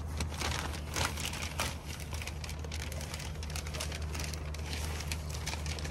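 Plastic shopping bag crinkling and rustling in a run of small crackles as it is rummaged through by hand, over the steady low hum of a car.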